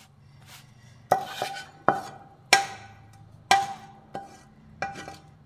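A spatula knocking and scraping against steel cookware while sticky jaggery-coated puffed rice is pushed off the pan and spread on a steel plate: about seven sharp knocks, each with a short metallic ring.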